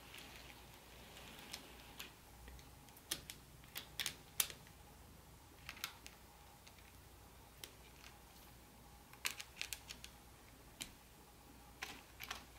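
Irregular light clicks and taps from small hard objects being handled, some in quick clusters of two or three, over a faint steady hum.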